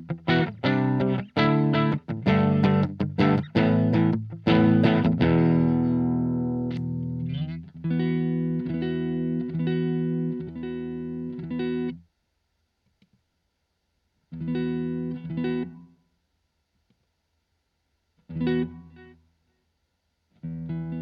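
Electric guitar played through a Blackstar ID Core Stereo 40 amplifier: fast strummed chords, then a chord left ringing and fading, then steady rhythmic picking that stops dead about halfway through. After a gap of silence come two short chord stabs, each followed by silence, and the playing picks up again at the very end.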